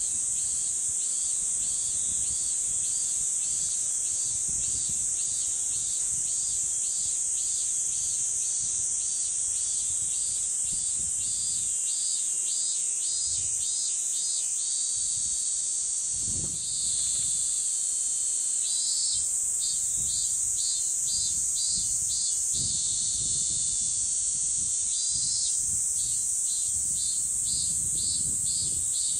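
Insect chorus: a steady high-pitched buzzing drone, over which another insect repeats a pulsed call about twice a second. The pulsed call speeds up and stops, then returns twice more.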